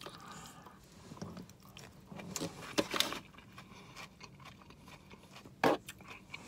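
Close-miked chewing of a forkful of salad bowl: soft, intermittent mouth sounds, with a few louder smacks about two and a half to three seconds in and again near the end.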